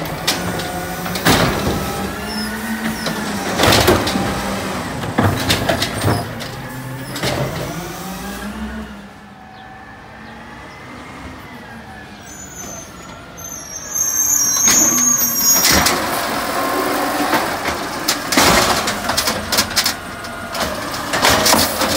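Automated side-loader garbage trucks working. The engine and hydraulic pump whine rises and falls in pitch as the arm lifts and tips a wheeled cart, with sharp clanks of the cart against the truck. About nine seconds in the sound drops to a quieter running truck, and louder clanking and hydraulics return about fourteen seconds in.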